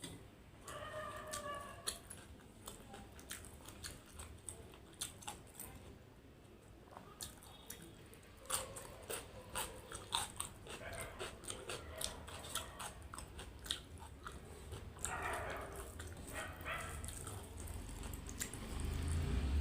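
Close-up mukbang eating sounds of achari chicken and rice: chewing, biting and wet mouth clicks, with many short sharp clicks. Twice, near the start and about three quarters through, a brief high-pitched whine-like tone.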